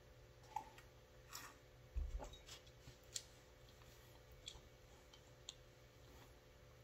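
Near silence: faint room hum with a few scattered soft clicks, and a soft low thump about two seconds in as a mug is set down after a sip.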